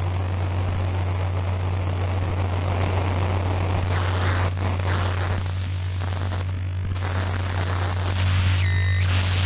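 Eurorack modular synthesizer playing a noise piece: a steady low drone under a dense wash of hiss and static. Thin high tones hold for the first four seconds, then stop, and sweeping glides rise and fall through the noise.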